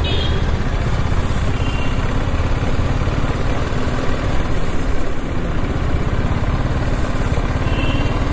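Motorcycle engine running at low speed with a steady low hum while the bike rolls slowly along.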